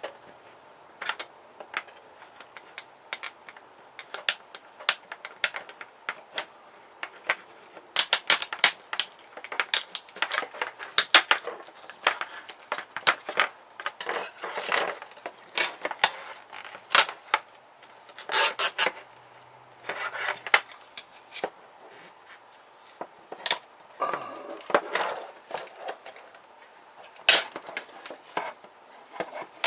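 A pH meter's plastic casing and parts being cut and pried apart by hand: a long run of irregular sharp clicks, snaps and clatters, with one loud crack near the end.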